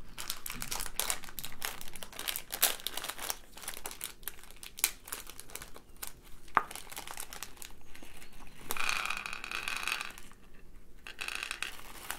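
Plastic packet of small metallic beads crinkling and crackling as it is handled and opened. This turns into a smoother rush of beads spilling out into a small dish about nine seconds in and again near the end.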